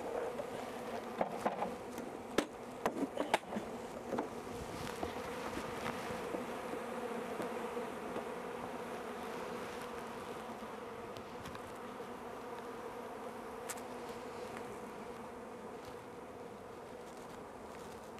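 A mass of honeybees buzzing steadily with a low hum, the buzz slowly fading. There are a handful of sharp knocks or taps in the first few seconds.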